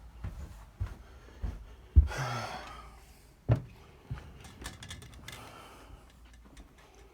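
A few separate knocks and thuds, the loudest about two seconds in and followed by about a second of rustling, then another knock and some light clicks: tools and parts being handled at a work surface.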